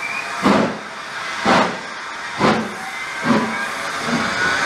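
GWR Castle Class four-cylinder 4-6-0 steam locomotive 7029 'Clun Castle' pulling away slowly with its train. Five exhaust beats about a second apart, quickening slightly as it gathers speed, over a steady hiss of steam.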